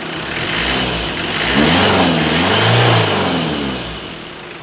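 Freshly overhauled Toyota 2C 2.0-litre four-cylinder diesel engine revved twice by hand at the injection pump, the pitch climbing and falling each time, then dropping back towards idle near the end.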